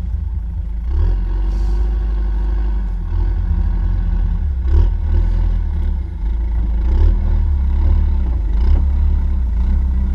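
Excavator's diesel engine running steadily under load, a heavy low rumble with a few short knocks and clatters.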